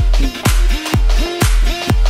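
Upbeat dance music with a heavy kick drum on every beat, a little over two beats a second, under gliding synth lines.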